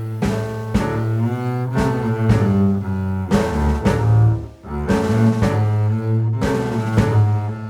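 Background music with a deep bass line, held pitched notes and a regular beat. It drops away briefly about four and a half seconds in.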